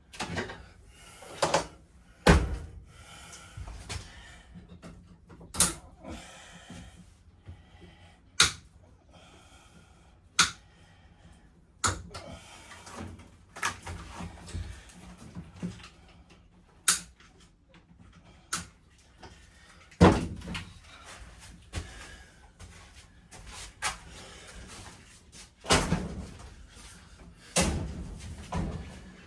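Irregular knocks, bangs and thuds a second or few apart, with rattling and scraping between them: RV interior fittings being knocked and pulled loose during a teardown.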